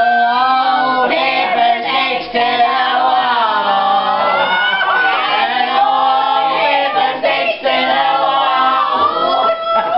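A group of adults singing together in helium-altered voices after breathing helium from balloons. Several pitched voices glide up and down over one another.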